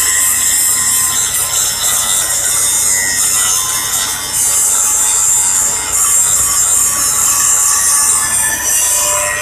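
Grinder working a flange: a loud, continuous grinding hiss that rises and falls a little as the disc bears on the work.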